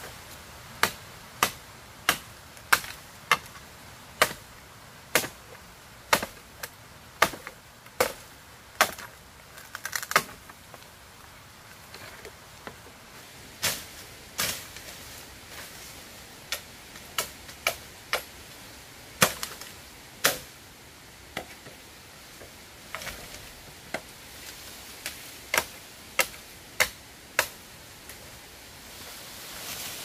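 A tool striking wood in sharp chops, a little more than one a second for the first several seconds, then in shorter runs with pauses between.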